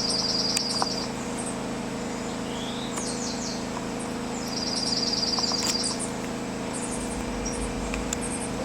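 Dark-eyed junco singing its song: a fast, even trill on one pitch, given twice, each lasting just over a second. Short high chips and a few falling notes come in between, over a steady low hum.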